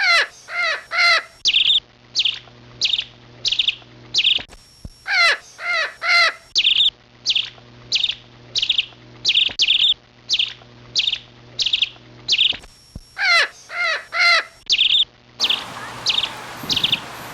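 A bird calling over and over, short pitched calls repeated about once or twice a second. A steady rushing noise comes in near the end.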